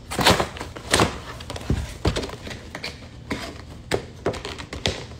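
Handling noise of a toy box and its packaging: an irregular run of clicks, taps and knocks as small Squishville figures are fitted back into their box, loudest in the first second.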